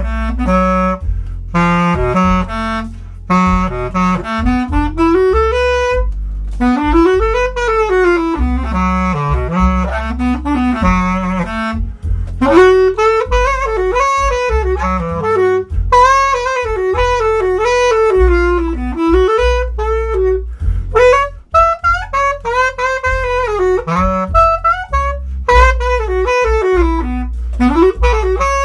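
Bass clarinet playing an improvised jazz-blues line: quick runs that climb and fall in pitch, in phrases with short breaks between them.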